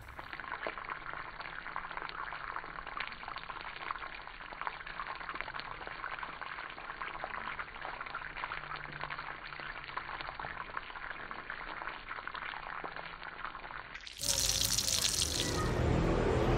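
Whole fish frying in hot oil in a pan, a steady sizzle thick with small crackles. About fourteen seconds in it gives way suddenly to a louder, different noise.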